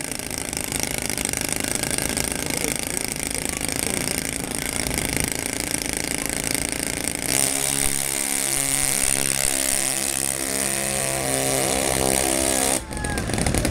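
Small model engine of a radio-controlled micropulling tractor running hard at the start line, then holding a steady, higher pitched note from about seven seconds in as the tractor pulls its weight sled down the track. The sound cuts off suddenly near the end.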